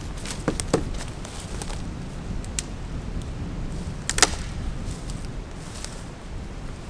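Footsteps on dry leaf litter, then a single sharp crack a little after four seconds in as a dead standing sapling is pushed over and snaps. Wind rumbles on the microphone throughout.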